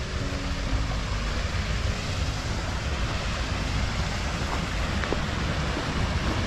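Small forest stream, Barlundbekken, rushing over stones and across the gravel path in a steady rush of water, with wind buffeting the microphone as a low rumble.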